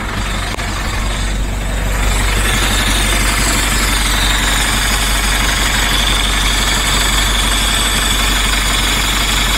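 DAF LF diesel truck engine idling, with a steady hiss of air and AdBlue spraying from the open dosing pipe during a metering test. The hiss grows louder about two seconds in. It is the sign that the new AdBlue pump is dosing.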